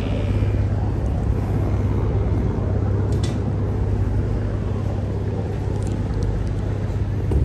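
River cruise boat's engine running with a steady low hum. A brief click about three seconds in.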